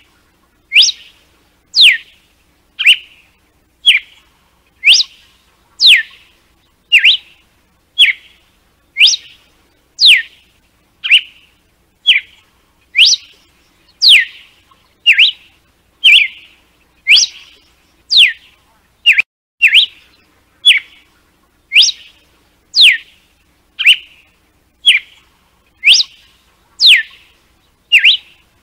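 Red-cowled cardinal (galo-de-campina) singing its 'açoite' (whip) song: short, sharp whistled notes repeated about once a second, many of them sweeping steeply down in pitch, alternating with shorter, lower notes.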